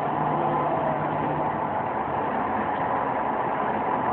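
A steady mechanical drone, even and unbroken, with a faint low hum and no bangs or other distinct events.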